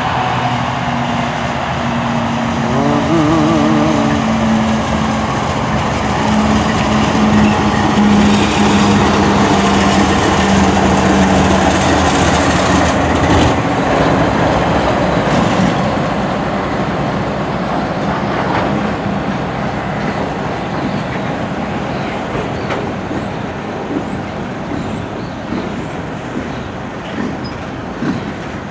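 Union Pacific freight train passing close by: the GE diesel locomotives' engines run with a steady low drone that peaks as they go by, then coal cars roll past with their wheels clicking over the rail joints, the sound easing off a little toward the end.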